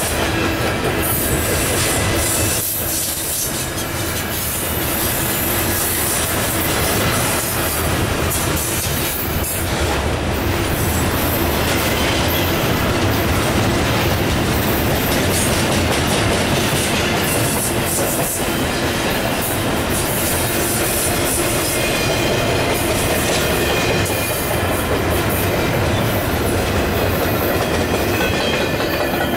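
Double-stack intermodal freight cars rolling past at speed: a steady loud rumble and clatter of steel wheels on rail. The last car goes by near the end.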